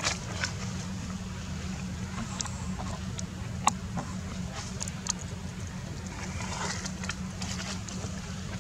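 Steady low rumble with scattered short, sharp clicks and ticks, one louder tick about four seconds in.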